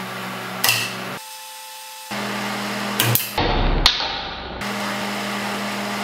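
Homemade microwave-oven-transformer battery spot welder humming steadily, with sharp snaps as welds are fired through a nickel strip onto 18650 cells: one about a second in and two more around three to four seconds in. The hum cuts in and out abruptly.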